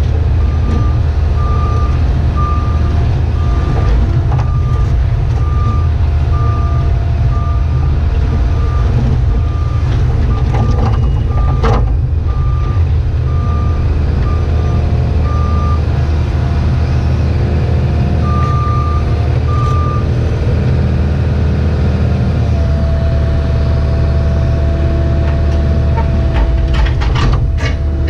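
Cat 304E2 mini excavator's diesel engine running steadily while digging, heard from inside the cab. A high-pitched backup-style alarm beeps in irregular pulses through the first half and briefly again later, and a few sharp clicks and knocks come near the end.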